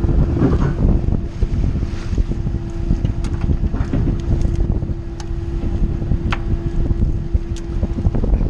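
Wind buffeting the microphone on a boat, over a low engine rumble with a steady hum that stops shortly before the end. A few sharp clicks stand out.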